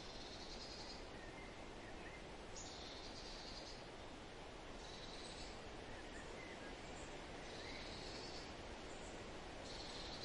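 Roadside forest ambience: a steady hiss with a high, buzzy trill repeating about every two seconds, and a few faint bird chirps.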